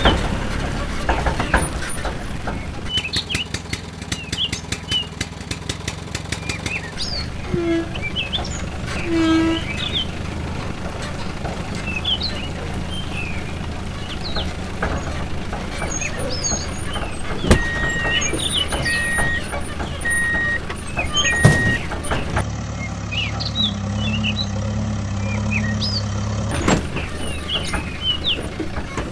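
Truck engine running steadily, with birds chirping throughout and four short, evenly spaced beeps about two-thirds of the way in.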